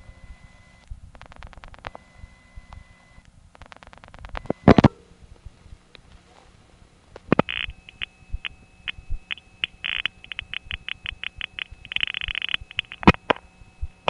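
Telephone call recorded off the line while it is being connected through a crossbar 5 office: clicky noises from the exchange's switching equipment. Scattered groups of clicks and a faint steady tone give way, from about seven seconds in, to a long run of rapid, irregular clicks broken by short tone bursts.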